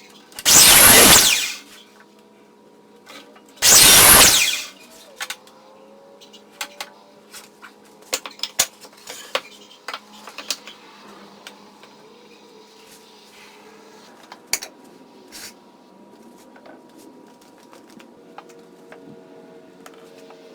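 Workshop tool noise: two loud bursts of about a second each from a tool, about three seconds apart, then scattered light knocks and clatter of parts being handled.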